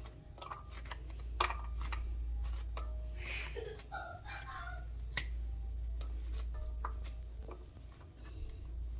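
Scattered light clicks and ticks from seeds being scraped by hand out of a halved young squash, with wet pulp, and dropping into a stainless steel bowl. A steady low hum runs underneath.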